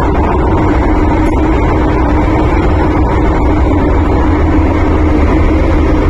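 Hong Kong MTR Island Line M-Train running through a tunnel, heard from inside the passenger car: a loud, steady rumble of wheels and running gear with a constant hum.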